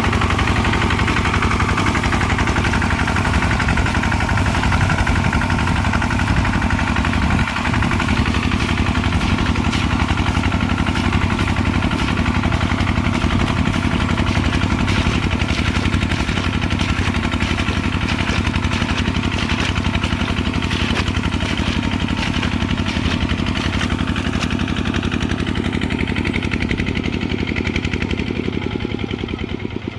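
Kubota RT140 single-cylinder diesel engine running steadily under load while plowing a rice field, a fast even puttering. It gets somewhat quieter and duller over the last few seconds.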